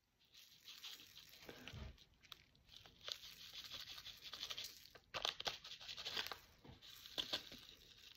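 Faint crinkling and rustling of a small plastic bag as bouncy-ball powder is tipped and shaken out of it into a funnel, with sharper crackles of the bag between about five and seven and a half seconds in.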